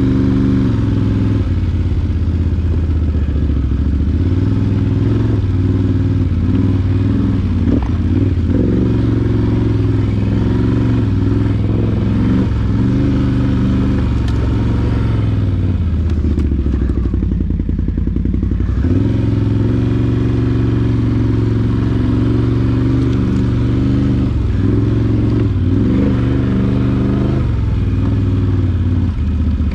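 ATV engine running while riding a trail, its pitch rising and falling with the throttle. The engine drops low for a few seconds just past the middle, then picks up again.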